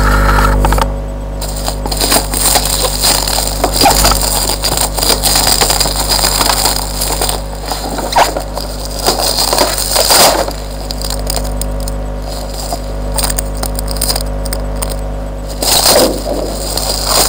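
Headphone packaging of plastic wrapping and a cardboard box handled and crinkled close to the microphone: an irregular run of crackling rustles and scrapes, loudest at the start, about ten seconds in and near the end, over a steady low hum.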